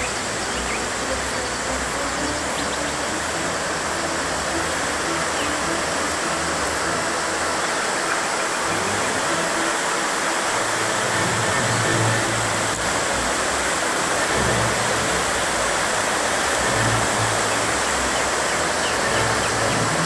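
Steady rush of water over river rapids and a waterfall.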